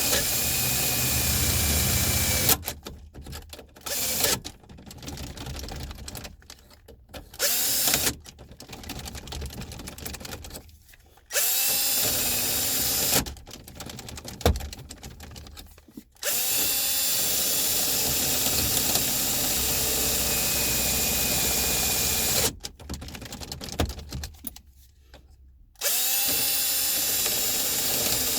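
Ridgid power drill drilling out a jammed ignition lock cylinder, run in about five bursts at full speed, each spinning up quickly as the trigger is pulled. Quieter clicks and rattles come between the bursts.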